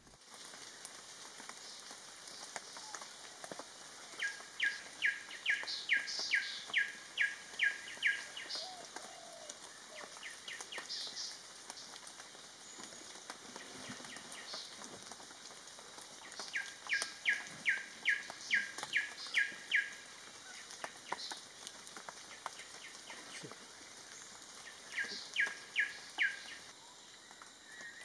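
A bird calling in three bouts of evenly spaced sharp notes, about two and a half a second, each note dropping quickly in pitch. The first two bouts last about four seconds each; a shorter one comes near the end.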